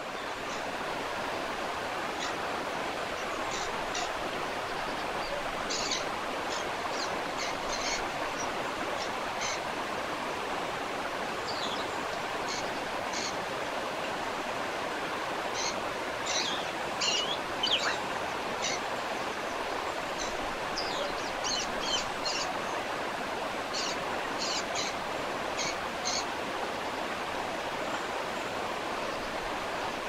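Waterfall rushing steadily, with short high bird chirps scattered over it, coming in loose clusters.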